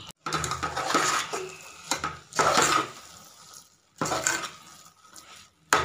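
A steel ladle stirs and scrapes thick wheat rava upma against a metal pot in about four separate bursts. The stirring keeps lumps from forming as the rava cooks and thickens.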